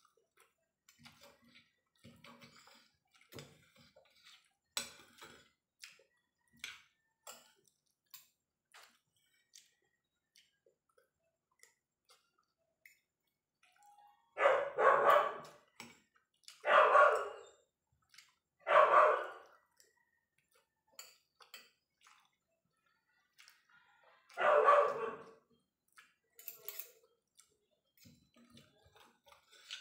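A dog barking, four loud barks about halfway through: three about two seconds apart, then a fourth some five seconds later. Under them are faint clicks of a fork and spoon on a plate, and chewing.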